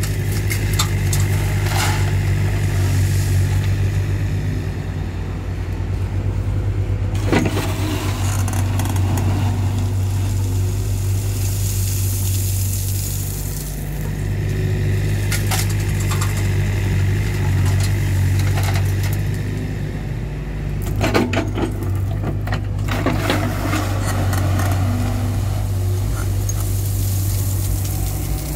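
Tracked excavator's diesel engine running steadily under hydraulic load as it scoops and loads crushed stone into a dump truck. Stone clatters loudly twice, about seven seconds in and again about twenty-one seconds in.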